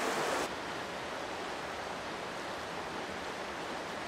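Steady rush of river water over rocks and rapids. It drops in level and turns duller about half a second in.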